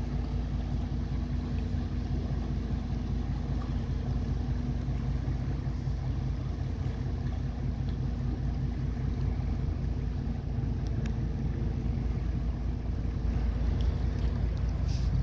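A steady low mechanical hum over a rumble of wind on the microphone. The wind grows louder near the end.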